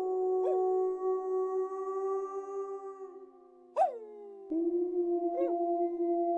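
Wolves howling: long, overlapping held howls that slowly slide down in pitch, cut by three short sharp yelps that swoop up and fall away. A howl fades about three and a half seconds in, and a fresh one starts a second later.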